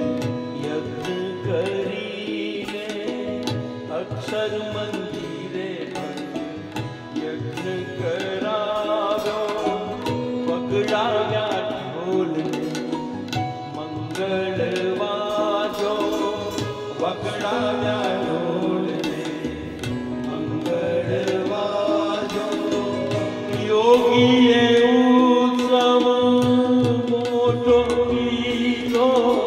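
Indian devotional song: a singing voice with gliding, ornamented pitch over steady tabla strokes. It swells louder about three-quarters of the way through.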